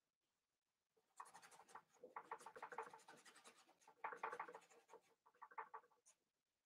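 Paintbrush scrubbing oil paint onto a stretched canvas in quick, short strokes: a soft, dry scratching that starts about a second in.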